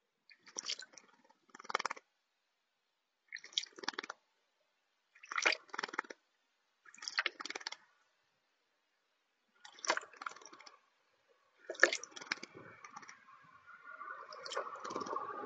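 Small bird bathing in a shallow plastic saucer of water, flicking its wings in short splashing bouts, about seven of them every one and a half to two seconds. Near the end a steadier, more continuous noise builds up.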